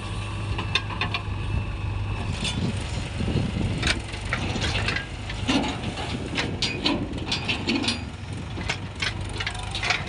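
Diesel engines of a JCB 3DX backhoe loader and Mahindra farm tractors running, steady at first, then busier from about two and a half seconds in, with frequent sharp knocks and rattles.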